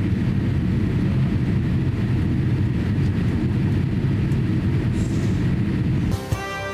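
Steady cabin noise inside an airborne Boeing 787-8 climbing out after takeoff: a deep, even rumble of engines and airflow. About six seconds in it gives way to music.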